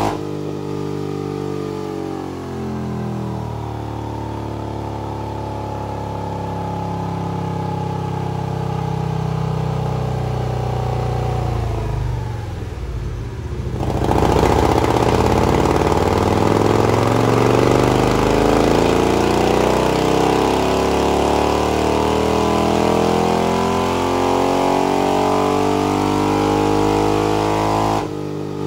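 Harley-Davidson Milwaukee-Eight V-twin with a Rocket 474 cam and a louvered-baffle 2-into-2 exhaust, running on a dyno. It runs at steadier revs, eases off briefly about twelve seconds in, then goes loud in a long full-throttle pull of about fourteen seconds that cuts off suddenly near the end.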